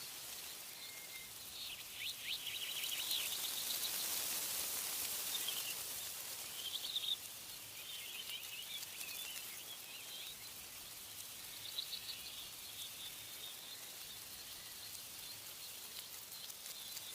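Songbirds chirping and trilling in short scattered phrases over a steady hiss of wind in tree leaves; the wind swells about two seconds in and eases again after about six.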